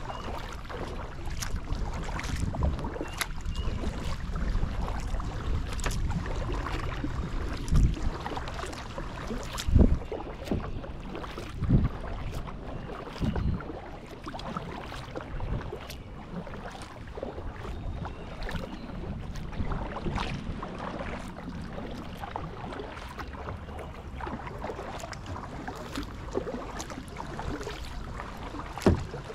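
Kayak paddling on a river: the paddle dipping and dripping in a steady run of small splashes, over a low rumble of wind on the action-camera microphone. A few louder low thumps stand out about a third of the way through and again near the end.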